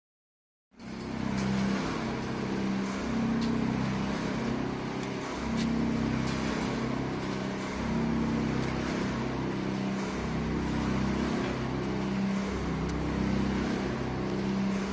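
Model 3S cold heading machine running steadily: a continuous mechanical drone with a strong low hum and occasional faint clicks, coming in abruptly within the first second.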